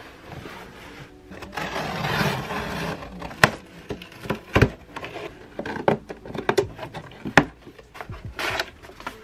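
Cardboard shipping box being handled and opened on a wooden desk: a scraping rustle about two seconds in, then a series of sharp knocks and taps as the cardboard flaps and the inner box are moved.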